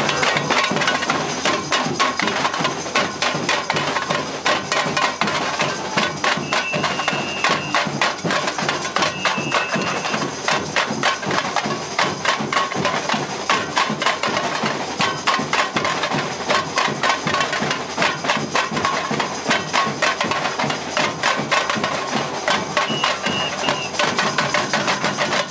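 Samba percussion corps (bateria) drumming a fast, steady rhythm.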